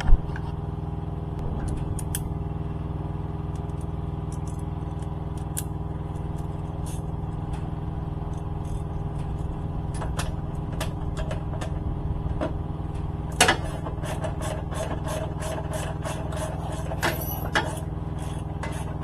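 Irregular metallic clicks and taps of hand tools working on the bolts of a motorcycle fender extender, over a steady low hum. The louder clicks come about two-thirds of the way in and near the end.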